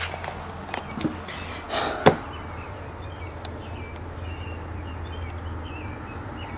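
A few sharp knocks and rustles in the first two seconds, then faint short chirps over a steady low hum.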